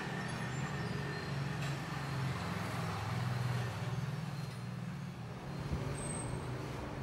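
Steady low motor rumble, with a brief faint high chirp about six seconds in.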